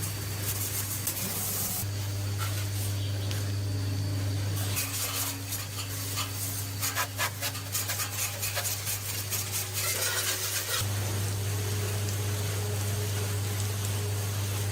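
Hand rubbing and scraping, with a run of quick rasping strokes in the middle, over a steady low hum.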